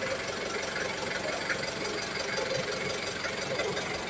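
Truck engine idling steadily.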